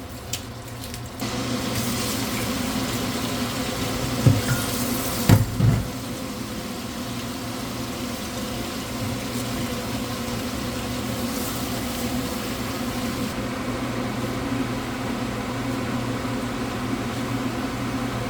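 Steady hissing kitchen noise while cooking, with a steady machine hum underneath. Two short clunks come about four and five seconds in.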